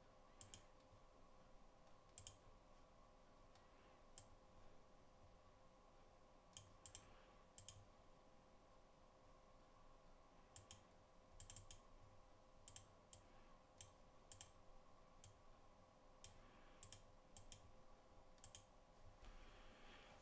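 Faint computer mouse button clicks, scattered and irregular, some in quick pairs, over a faint steady hum.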